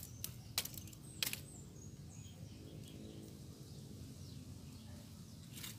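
Faint birds chirping over low background noise, with three sharp clicks in the first second and a half.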